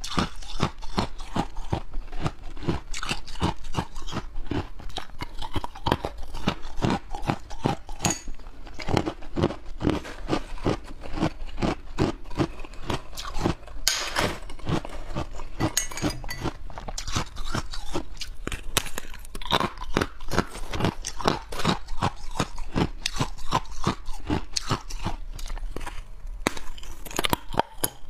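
Hard white ice being bitten and chewed close to the microphone: crisp crunches, several a second.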